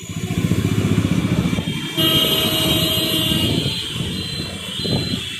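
Motor scooter riding through city traffic with its engine and road noise rumbling steadily. A vehicle horn sounds about two seconds in and holds for over a second. Short high beeps repeat near the end.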